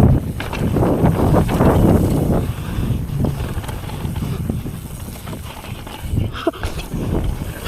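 Mountain bike riding over a rough dirt trail: tyres rumbling with rattling clicks and knocks from the bike, loudest for the first couple of seconds and then easing off.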